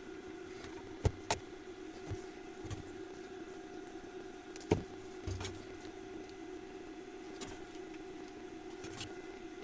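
A steady hum with a few sharp clicks and taps over it, the loudest two about a second in and one just under five seconds in.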